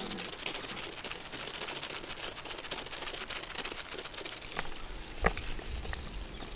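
Block of mozzarella cheese being grated over the tray: a dense, crackly scraping that thins out after about four seconds, with a single thump about five seconds in.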